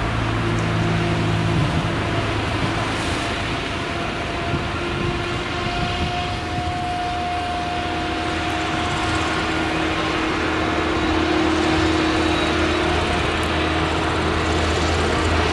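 Claas Jaguar 970 forage harvester's V8 engine and chopper running under load as its Orbis header cuts and chops tall sorghum, with the tractor hauling the trailer alongside. A steady mechanical drone with a steady whine in it, growing slightly louder toward the end.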